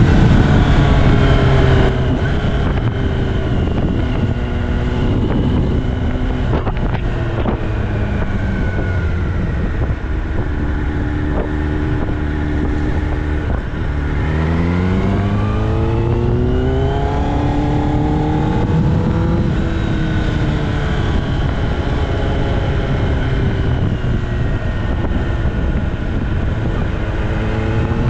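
Kawasaki ZX-10R inline-four with an Austin Racing aftermarket exhaust, riding in traffic. The engine note falls off loudly at first, then runs low and fairly steady. About halfway through it rises as the bike accelerates, then eases back down.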